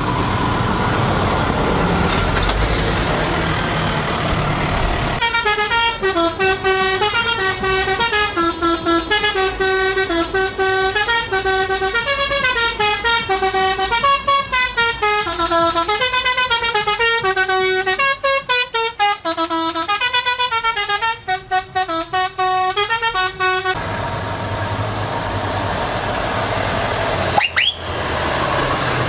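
Heavy trucks' diesel engines running as they pass, then a truck's musical air horn plays a tune of stepping notes for about eighteen seconds and cuts off suddenly. The engines are heard again afterwards, with a short rising whistle near the end.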